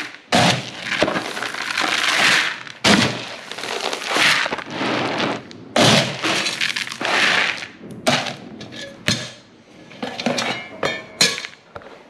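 Feed pellets being scooped from a bin with a metal scoop and poured into a plastic bucket, rattling. There are three long pours, then a run of shorter rattles and clicks from about eight seconds in.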